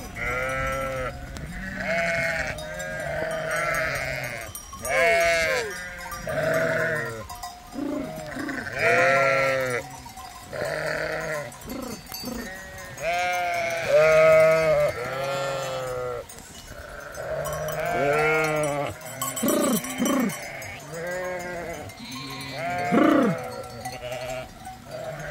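A flock of sheep and goats bleating, many calls overlapping one after another, some higher and thinner than others.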